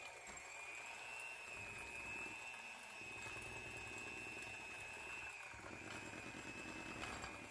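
Electric hand mixer running steadily, its beaters working through thick cream cheese batter, with a constant high motor whine.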